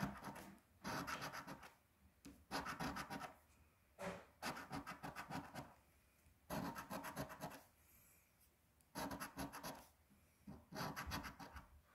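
A coin scratching the coating off a lottery scratch-off ticket, in short bursts of quick rasping strokes, each about a second long, with pauses between them.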